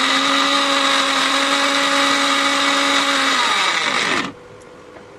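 Electric mixer grinder with a steel jar running at full speed, grinding dry roasted sponge gourd flowers. About three seconds in it is switched off, and the motor winds down, falling in pitch, until it stops about a second later.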